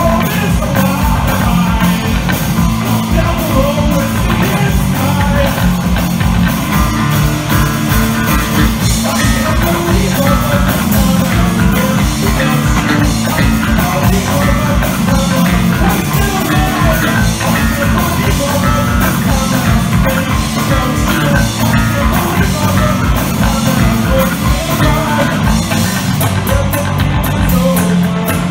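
Three-piece punk rock band playing live: electric guitar, bass guitar and a drum kit, with the guitarist singing into the microphone.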